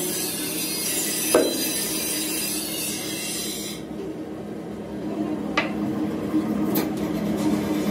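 Steady hum of a workshop metal press's motor, with a high hiss that cuts off suddenly about four seconds in. Three sharp metal clanks sound over it, the loudest about a second and a half in.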